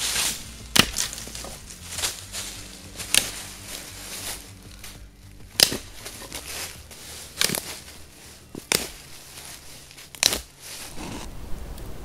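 Dry sticks snapping as firewood is broken for a campfire: about seven sharp cracks, one every second or two, with leaf-litter rustling between them.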